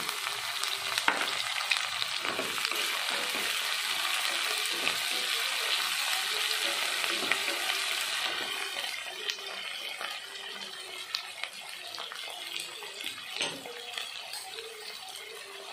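Onions, green chillies and curry leaves sizzling in hot oil in a kadai just after chopped tomato goes in, with a spatula scraping and knocking against the pan as it is stirred. The sizzle is loudest at first and settles quieter about halfway through.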